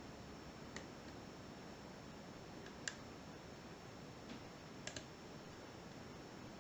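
A few faint, short metallic clicks of a lock pick working the pin stacks of a Sargent 5-pin lock cylinder under tension, spaced about two seconds apart with a double click near the end, over a low steady hiss.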